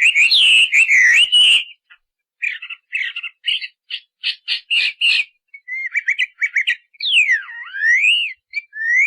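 A bird calling loudly: fast warbled chirps and short chirp series, then sliding whistles, including a long whistle that falls and rises again about seven seconds in.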